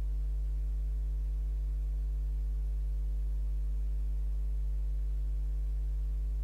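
Steady, unchanging low electrical mains hum with a ladder of fainter, higher overtones above it.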